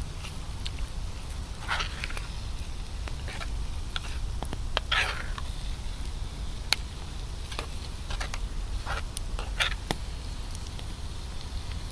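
Food cooking by a campfire: scattered crackles and pops, with short spitting hisses about two, five and nine seconds in, over a low steady rumble.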